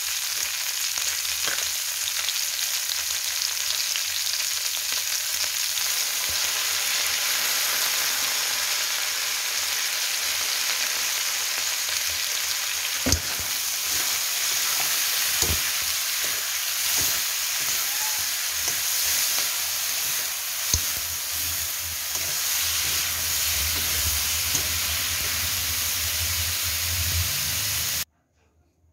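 Shredded cabbage and carrots sizzling as they are stir-fried in a metal wok, with a spatula tossing them and a few sharp clicks of it against the pan. The sizzle cuts off suddenly near the end.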